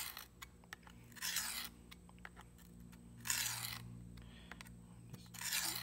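Steel knife blade drawn across the diamond plate of a WorkSharp field sharpener: short gritty rasping strokes about two seconds apart, three full strokes after one at the very start.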